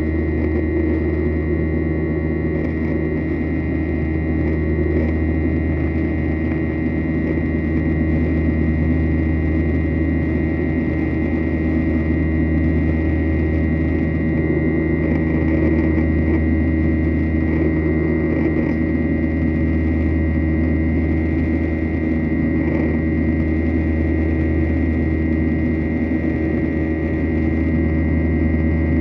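Jet airliner cabin noise during climb after takeoff: the engines and airflow make a steady low drone with a steady high-pitched whine on top.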